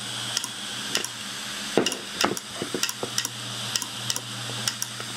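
Opened Samsung 80 GB IDE hard drive running with its cover off: the spinning platter gives a steady hum and hiss, and the read/write head arm clicks irregularly as it swings, with a few louder clicks about two seconds in. The owner puts the clicking down to the drive probably being damaged from being opened.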